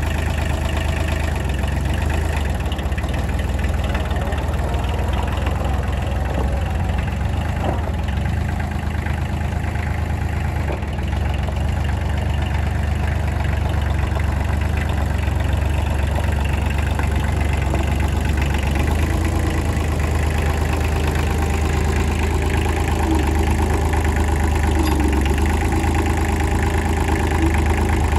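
Kubota L245H tractor's two-cylinder diesel engine idling steadily.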